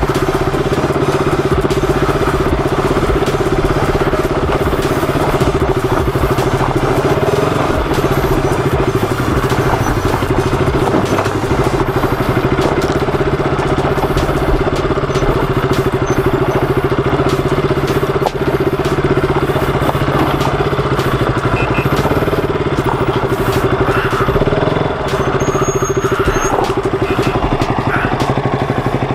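KTM RC motorcycle's single-cylinder engine running steadily at low revs while riding slowly down a rocky dirt trail, with light knocks and rattles from the bumps.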